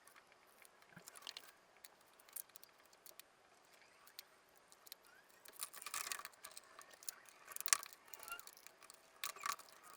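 Faint hand-work on car interior trim: scattered light clicks and rustles of plastic and anti-squeak material being handled, busiest in the second half.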